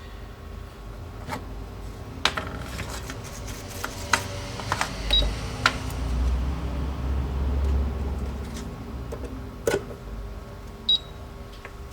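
Two short, high electronic beeps about five seconds apart from a homemade soldering station's buzzer, among scattered clicks and knocks of handling.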